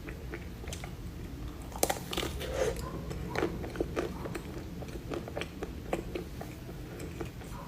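A person biting into and chewing a blueberry fruit pastry close to the microphone: scattered small crunches and wet mouth clicks, with one sharper crunch about two seconds in.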